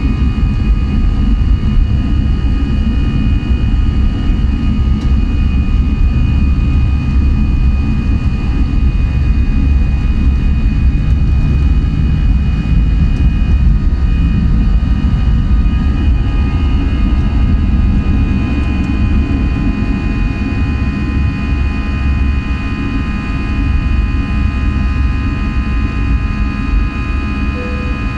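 Jet airliner engines at takeoff thrust, heard inside the passenger cabin through the takeoff roll and climb-out. A loud, steady low rumble runs with a high, steady whine, and it eases slightly near the end.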